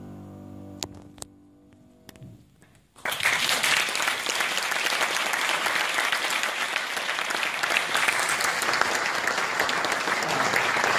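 A grand piano's final chord dying away, with a few faint clicks and a moment of hush. Then audience applause breaks out sharply about three seconds in and goes on steadily as the loudest sound.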